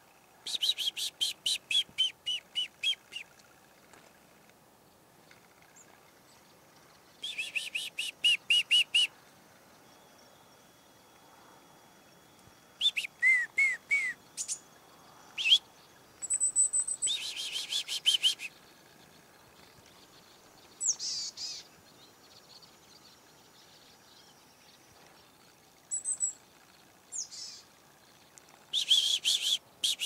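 Chickadees calling: several bursts of rapid, repeated call notes, with a few short high thin notes in between and quiet pauses separating the bursts.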